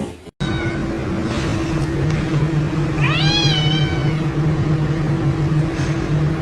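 A cat meowing: one long meow about three seconds in that rises and then falls in pitch, with a fainter short call just before it, over a steady low hum.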